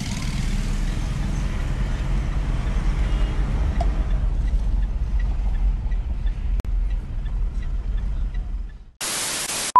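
Steady low road rumble of a motor vehicle being driven, fading out about nine seconds in. A short burst of loud, even hiss follows in the last second.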